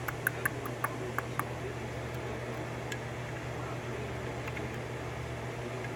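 Small metal lockpicking tools clicking and clinking as a better tension wrench is sought: a quick run of light clicks in the first second and a half, two more later. A steady low hum underneath.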